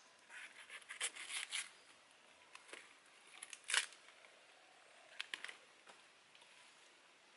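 Fresh banana leaf being torn and handled: crisp rustling and ripping in several short bursts, the sharpest a little under four seconds in.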